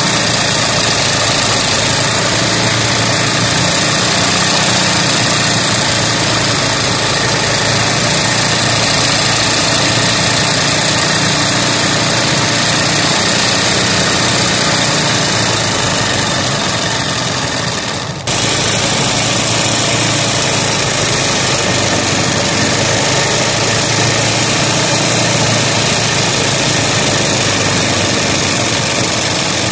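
Sewing machine running fast and steadily during free-motion embroidery, its needle stitching through hooped fabric. There is one brief drop about two-thirds of the way through, then it runs on the same as before.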